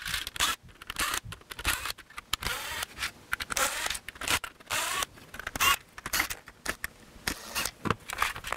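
Cordless driver backing Torx screws out of a plastic motorcycle grille in several short runs, each with a rising motor whine, between clicks and rattles of the screws and plastic.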